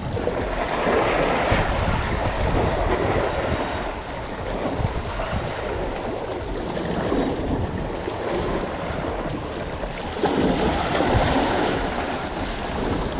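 Small waves washing and splashing over rocky jetty boulders, with wind buffeting the microphone. The wash swells louder about a second in and again shortly before the end.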